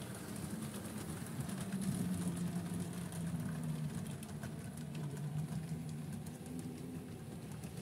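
Tri-ang class 81 model electric locomotive's original motor bogie humming as it runs on the layout, the pitch wavering slightly, with faint clicking of wheels on the track.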